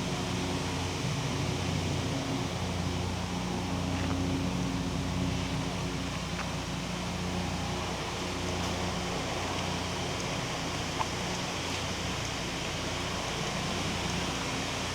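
Distant helicopter droning steadily, a low hum under a steady hiss of wind and air.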